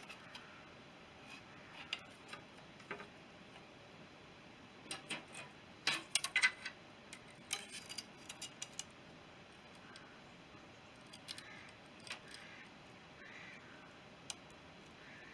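Light metallic clicks and clinks of motorcycle clutch and primary-drive parts being handled and fitted, coming in a few short clusters with quiet stretches between.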